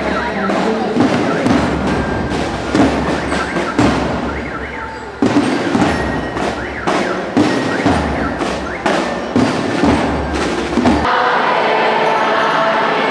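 Student marching band playing: drums beat a steady march, about two strokes a second, with a mallet instrument (xylophone) over them. About eleven seconds in, the sound cuts abruptly to a crowd singing.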